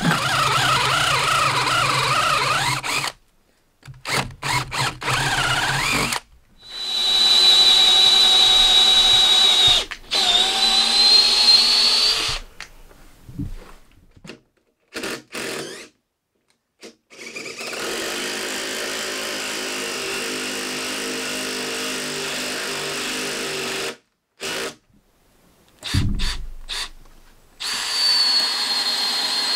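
Power drill running in several bursts with sudden breaks between them, its whine dipping and rising in pitch as it works into the larch rafters.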